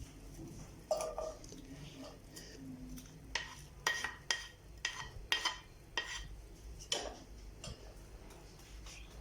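Kitchen utensils clinking against dishes: a run of sharp, briefly ringing clinks, coming thickest in the middle of the stretch.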